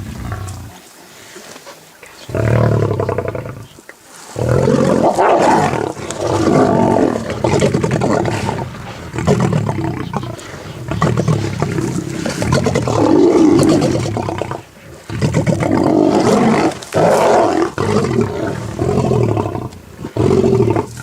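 Lions roaring in long, loud bouts, starting about two seconds in and broken by a few short pauses.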